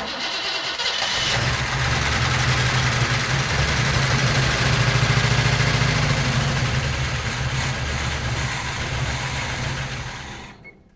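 1957 GMC 100 pickup engine firing on fuel poured into the carburetor and running steadily for about ten seconds, then dying away near the end as the fuel runs out. The owner judges the engine worn from how it runs.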